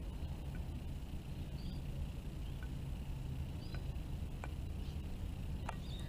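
A few sharp clicks as Australian magpies' beaks peck meat scraps from a plate, over a steady low background rumble.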